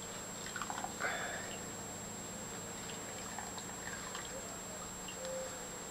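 Herbal tincture dripping and trickling from a hand-squeezed cheesecloth bundle into a glass bowl: faint, scattered drips.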